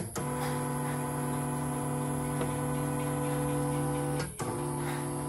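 CNY E900 portable embroidery machine running its motor, a steady, even-pitched hum. It stops briefly with a click about four seconds in, then starts again at the same pitch. The machine runs after being opened for service.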